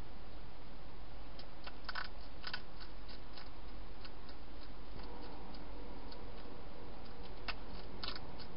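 Hedgehog crunching dry food inside a plastic feeding box: scattered sharp crunches and clicks, in a cluster about two seconds in and again near the end.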